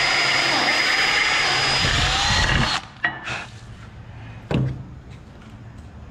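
Cordless drill with a step drill bit boring through an aluminium side-step bracket: a steady whine and cutting noise that stops abruptly about three seconds in. A click and a louder knock follow as the drill and bracket are set down, then a few light ticks.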